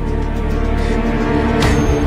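Drama background score: held low notes that swell, with a sudden hit about a second and a half in.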